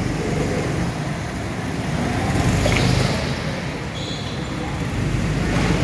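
Go-kart motors running as several karts lap an indoor track, a steady drone that swells a little near the middle, with one kart passing close at the start.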